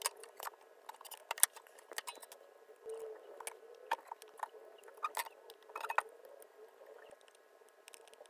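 Scattered light clicks and taps of a soldering iron tip and fingers against a circuit board and LED leads while the through-hole pads are heated to seat a new LED, over a faint steady hum.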